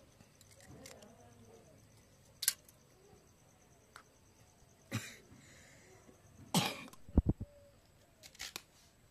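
Raw eggs being cracked by hand into a small steel bowl: a series of separate sharp taps and cracks of shell, with a couple of heavier knocks and low thuds a little past the middle.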